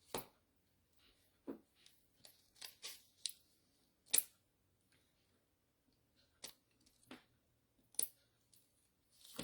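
Craft supplies being handled as a new box of glue dots is opened: an uneven run of short clicks and rustles, the loudest about four seconds in and again near eight seconds.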